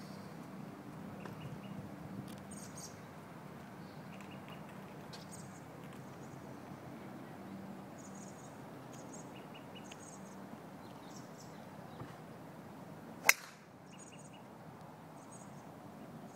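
Golf club striking a teed ball: one sharp crack about three-quarters of the way through, the loudest sound by far. Birds chirp in short repeated calls throughout, over a low steady background rumble.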